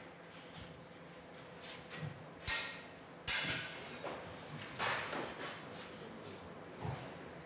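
Two fencers sparring with steel practice swords: scuffing footsteps on a hard floor and a few sharp clacks of blade on blade, the loudest about two and a half and three and a half seconds in, some with a brief ring.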